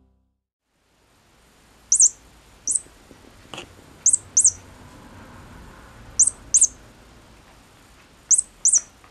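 A furry mouse cat toy on a string chirping like a bird: short, very high chirps, mostly in pairs, repeating about every two seconds. There is also a faint click in between.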